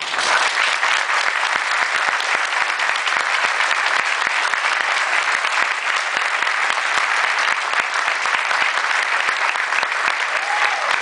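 Large audience applauding, many hands clapping densely. It breaks out suddenly and holds steady throughout.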